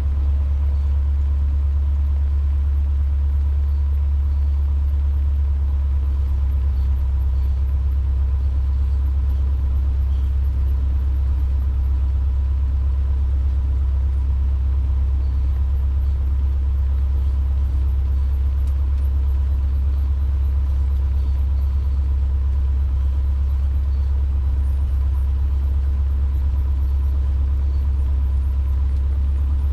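Cessna 150's four-cylinder piston engine running steadily at low power, a deep even drone that holds the same pitch and level throughout, with a faint steady high tone above it.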